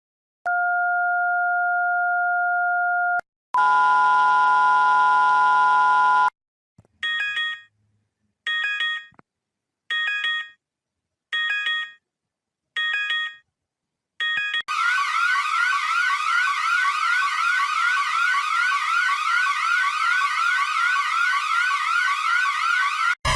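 Electronic emergency alert tones in sequence: a steady two-note tone lasting a few seconds, then a fuller chord, then six short beeps about a second and a half apart, then a fast siren-like sweep that rises about three times a second until it cuts off near the end.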